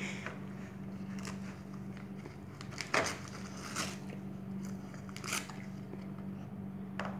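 A dog chewing and tearing at the wrapping paper on a present, with irregular crinkles and crunches, the loudest about three seconds in.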